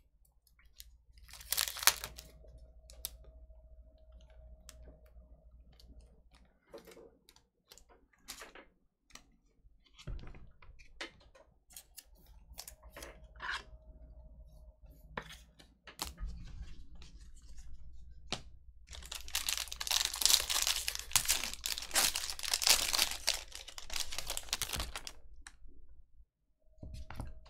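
Foil wrapper of a baseball card pack being torn open and crinkled, loudest for several seconds from about 19 seconds in, with scattered light clicks of card handling around it. A faint steady tone sounds twice, about two seconds in and again near the middle.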